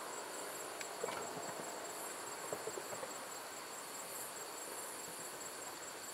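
Steady high chirring of night insects, with a few faint sharp pops of distant fireworks about one to three seconds in.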